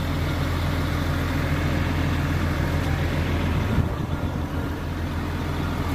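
A vehicle engine idling steadily with a low hum, with a short knock a little under four seconds in.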